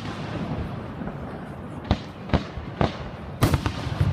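Fireworks display: about half a dozen sharp bangs in quick succession from about two seconds in, over a steady outdoor background noise.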